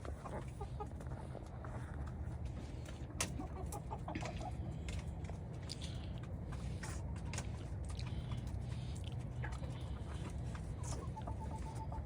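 Hens clucking softly, with scattered sharp clicks and a steady low hum underneath.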